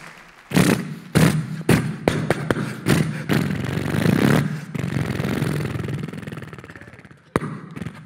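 A man imitating big motorcycles with his voice through a stage microphone. A run of sharp, punchy revs gives way to a steady low engine drone that slowly fades out, like the bikes riding away. A single sharp click comes near the end.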